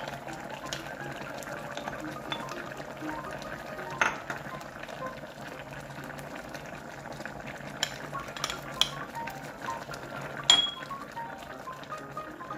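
Kimchi stew bubbling at a simmer in a pot, with a few sharp clinks of a dish or spoon against the pot, the loudest about ten and a half seconds in. Soft background music underneath.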